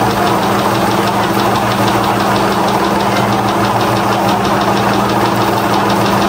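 A motor or small engine running steadily at an even pitch, with a fast, regular ticking on top.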